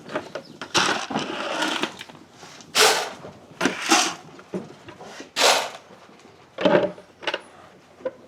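A series of short rustling, crunching noises, about six within a few seconds, with a longer stretch of rustling about a second in.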